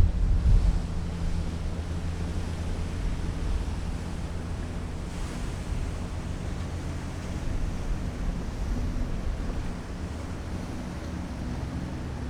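Steady low hum of a large ship's engines, several low tones held throughout, with wind buffeting the microphone, heaviest in the first second.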